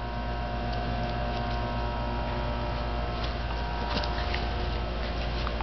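A steady low hum, with a few faint light clicks about three to four seconds in as a puppy mouths a plastic wiffle ball.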